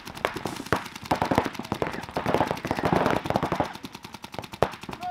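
Paintball markers firing rapid strings of shots, a fast, even rattle of sharp pops at around ten a second that keeps going.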